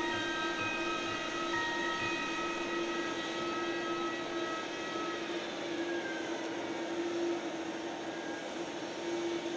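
Steady droning hum of airliner jet engines on the ground, with a constant low whine. The last held notes of soft background music fade out about halfway through.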